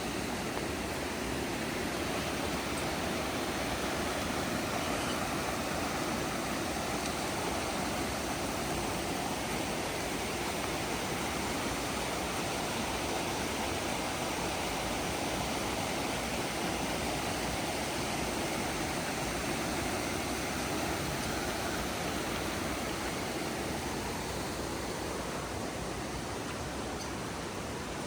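Running water of a rainforest creek: a steady rushing flow that swells a little in the middle and eases slightly near the end.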